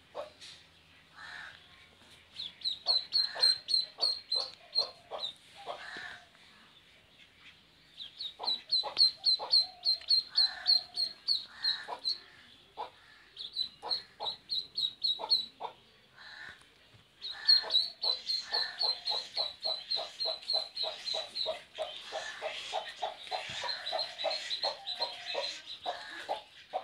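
Ducklings peeping in quick runs of high, shrill calls, coming in several bouts with short pauses between them. In the second half a hen clucks steadily under the peeping.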